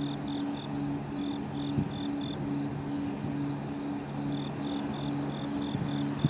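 Insects chirping in quick runs of short, high pulses over a low hum that pulses about twice a second, with two sharp clicks, one about two seconds in and one at the end.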